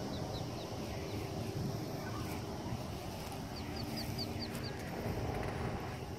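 Ducklings peeping in short, high calls: a few near the start, then a quick run of about six peeps a little past halfway.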